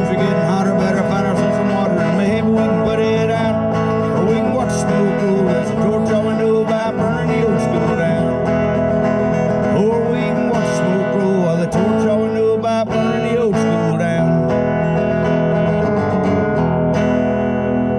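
Country song performed live: a man singing while strumming an acoustic guitar.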